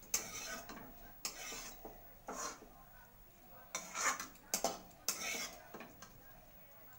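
Metal spoon scraping and clinking against a metal kadai as cooked greens are scooped out onto a plate: about six short scrapes, the loudest about four seconds in.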